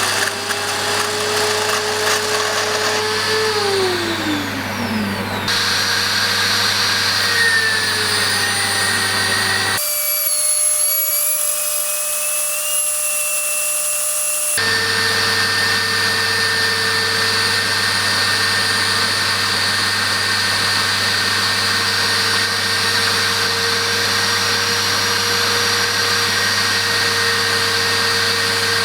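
Electric grinder running and grinding metal on a lathe: a steady motor whine over a grinding hiss. About four seconds in, one whine drops sharply in pitch, and the sound changes abruptly three times as separate clips are joined.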